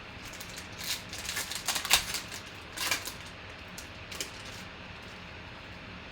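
Football trading cards being handled and flipped through by hand. There is a quick run of crisp clicks and rustles from about one to three seconds in, and one more click a little after four seconds.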